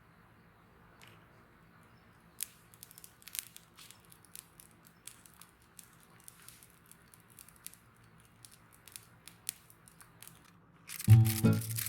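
Irregular small sharp crackles and snaps, a few a second at most. Background music starts near the end.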